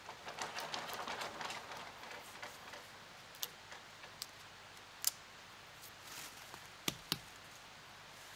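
Faint rustling of leaves and undergrowth as someone moves in the forest, followed by a few scattered sharp twig snaps, two of them close together near the end.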